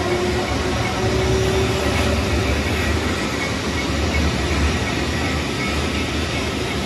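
Rhaetian Railway passenger coaches rolling slowly past on street-running track, the wheels on the rails making a steady rumble with no break.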